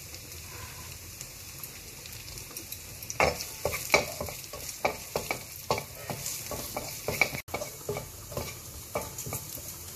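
Chopped onion, green chilli, ginger and garlic sizzling in hot oil in a non-stick wok as a tadka is fried. From about three seconds in, a slotted spatula scrapes and knocks against the pan in quick, uneven stirring strokes.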